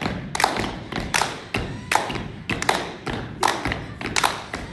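Body percussion by a small group: hand slaps on a bare belly and body, and hand claps, in a steady quick rhythm of sharp thuds and taps at roughly three beats a second.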